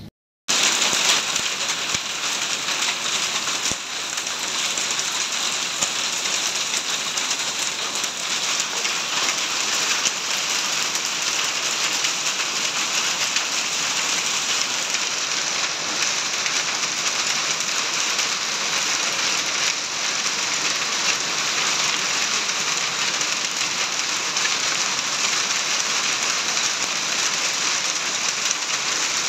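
Heavy rain pouring steadily onto muddy ground and plants: a dense, even hiss that begins after a split second of silence.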